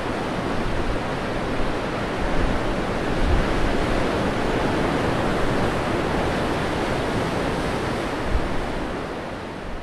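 Sea waves and wind making a steady rushing noise, with a few low thumps of wind, fading out near the end.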